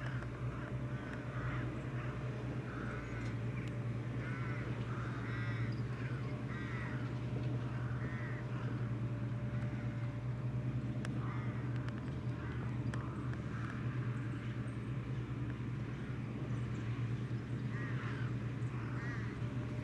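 Crows cawing again and again in short clusters over the steady low running of a tractor engine.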